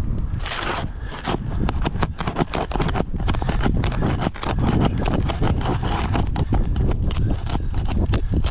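Brittle asphalt shingles being pried up to reach a nail: dense, irregular crackling, clicking and scraping as the shingle tabs are lifted and tear.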